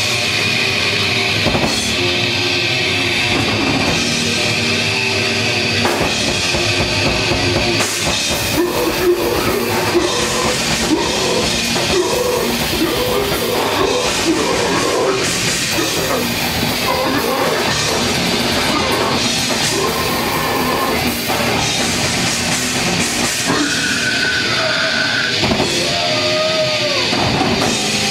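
Live heavy rock band playing loud: electric guitars over a drum kit.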